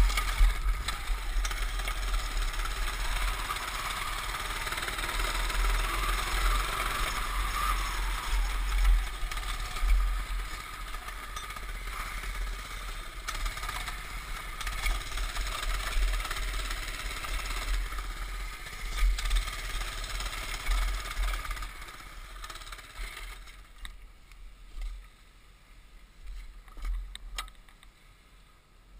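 Small single-cylinder engine of a Baja mini bike running as the bike rides over grass and gravel. About 23 seconds in it drops to a much quieter level as the bike comes to a stop, with a few sharp clicks near the end.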